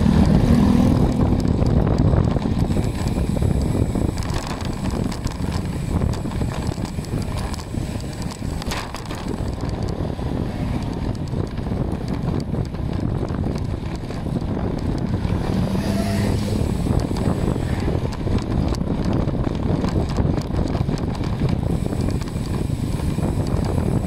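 Wind rushing over the microphone, mixed with road noise, while riding along a concrete road. The sound is a steady rumble with no breaks.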